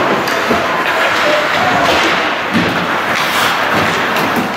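Ice hockey play in a rink: a steady scraping noise of skates on the ice with short clacks of sticks and puck, and a heavy thud about two and a half seconds in.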